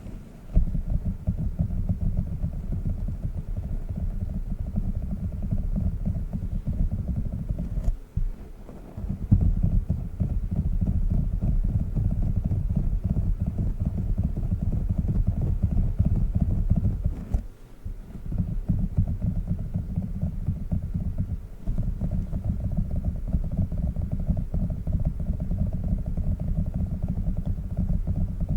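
Tiny squishy octopus toy squeezed and kneaded close to the microphone: a dense, continuous low squishing, with brief pauses about eight and seventeen seconds in.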